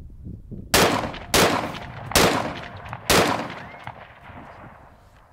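Four quick rifle shots from a .223 AR-15 fired without its suppressor, spread over under three seconds, each trailing off in a fading echo.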